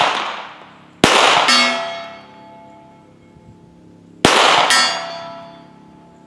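Two 9mm shots from a Glock 17 pistol, about three seconds apart. Each is followed about half a second later by the ringing clang of the bullet hitting a steel plate target 75 yards downrange. The tail of an earlier shot fades at the start.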